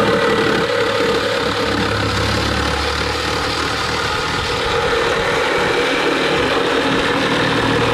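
Power cutting tool running steadily, used to cut through metal parts of the car.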